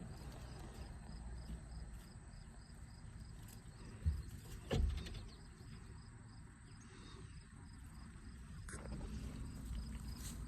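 Crickets chirping steadily in a regular high-pitched pulse, over a low rumble, with two dull thumps a little past the middle.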